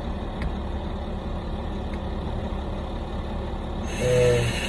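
Steady low engine-like rumble, like a vehicle idling. Near the end a brief voice sounds and a steady higher hiss sets in.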